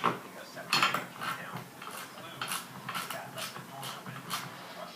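Socket ratchet clicking in short bursts as screws on a ceiling fan are driven in, with light metallic clinks of metal parts.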